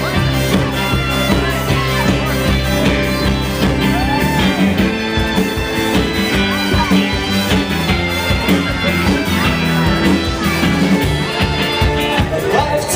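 A live folk-rock band playing, with fiddle, accordion, upright double bass and drums. Held low notes give way to a more pulsing rhythm about four seconds in.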